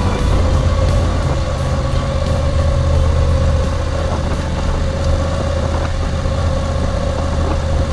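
Moto Guzzi V7 850 Special's air-cooled V-twin engine running steadily while the motorcycle is ridden at low speed.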